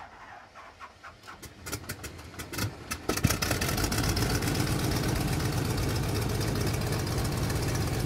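Electronic music: sparse clicks that come faster and faster over the first three seconds, then a dense, steady pulsing texture over a deep rumble.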